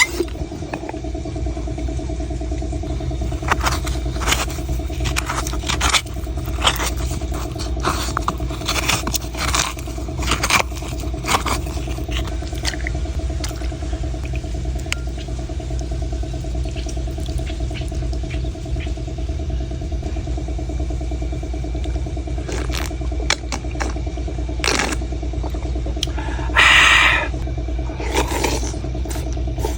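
A knife striking and scraping coconuts in scattered, irregular blows, over a steady mechanical hum. A louder burst of sound comes near the end.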